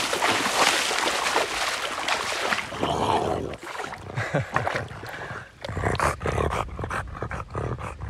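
Shallow river water splashing as a French bulldog wades through it: a continuous rush of splashing for about the first three seconds, then scattered smaller splashes as it slows and stands in the water.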